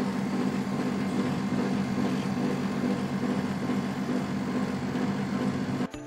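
Outdoor unit of an Amazon Basics 1-ton split air conditioner running, its compressor and fan giving a steady low hum and making a lot of sound. The owner blames the noise on the unit being installed without rubber shock absorbers. The sound stops abruptly just before the end.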